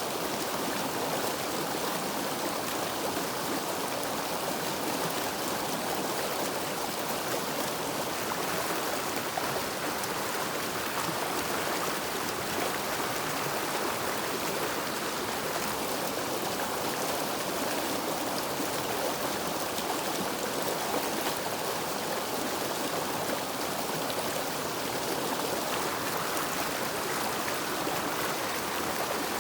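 River water flowing, a steady even rush with no pauses.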